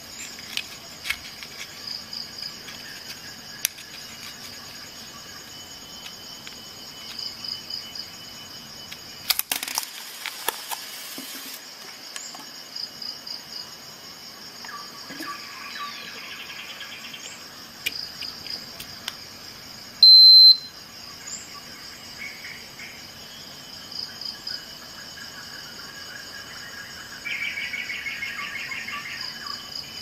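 A Victorinox Voyager Swiss Army knife's digital clock module gives one short, high electronic beep about two-thirds of the way through, the loudest sound here. Steady insect chirping runs in the background, with a few small clicks of the knife being handled about a third of the way in.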